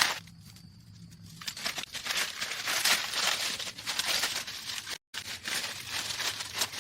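Dense crackling, crinkling rustle of something being crumpled or torn, broken by a brief gap about five seconds in.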